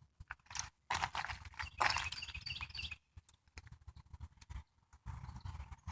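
A horse shifting about on its hooves, with scattered knocks and a louder rustling stretch about a second in.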